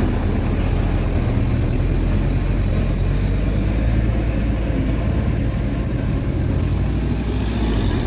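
Diesel engine running steadily at an even pitch, with no revving.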